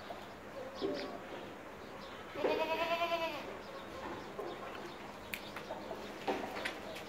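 A Sojat goat kid bleats once, a trembling, wavering call about a second long, roughly a third of the way in. Light clicks and scuffs of hooves on concrete come and go around it.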